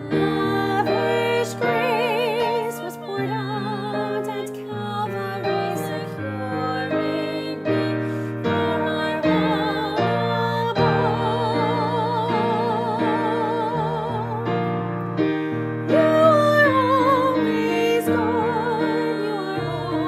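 A solo voice singing with strong vibrato over piano accompaniment.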